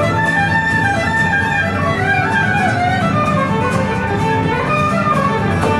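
Irish folk tune played live by a small band: fiddle and tin whistle carrying a moving melody over strummed acoustic guitar and a bodhrán.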